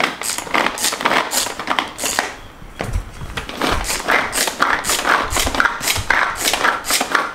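Pull-cord manual food chopper shredding mozzarella: each quick pull of the cord spins the blades with a short rattling whir, repeated about two or three times a second.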